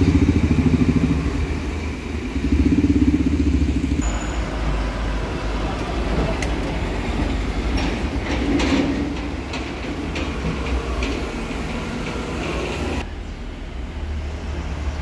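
Street traffic: motorcycles and scooters passing close by with their engines running, then a lorry going by.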